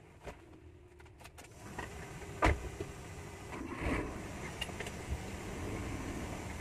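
Sounds inside a car: a few light clicks and a loud thump, then the car running with a steady low noise that grows louder about two seconds in.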